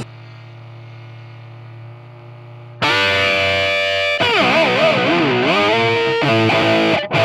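Distorted electric guitar: a quieter held note, then about three seconds in a loud burst of sustained, overdriven playing with wavering bent notes and a brief break near the end.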